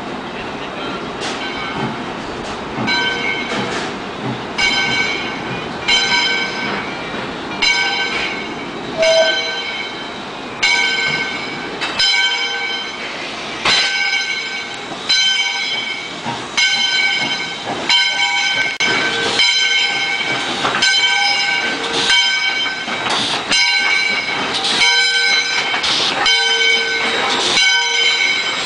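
Baldwin 2-8-0 steam locomotive moving slowly past, with steam hissing and a regular ringing strike about once a second that comes a little faster later on, typical of the locomotive's bell.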